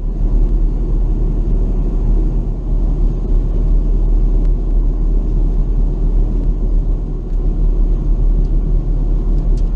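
Airbus A350-900 jet airliner, a steady loud low rumble from its engines and the airflow.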